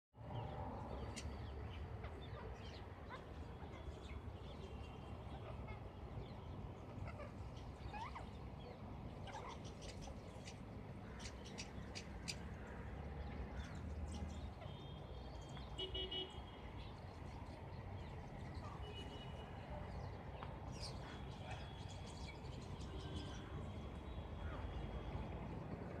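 Birds chirping and tweeting in short scattered calls, with sharp clicks here and there, over a steady low rumble.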